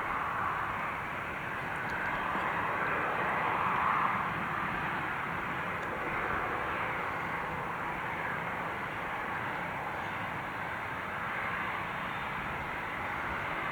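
Jet airliner engines, a steady rushing noise that swells about four seconds in and then holds.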